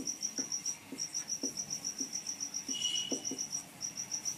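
A cricket chirping in the background: short, even high-pitched pulses about seven a second, in long runs broken by brief pauses. Faint knocks and a short squeak of a marker writing on a whiteboard.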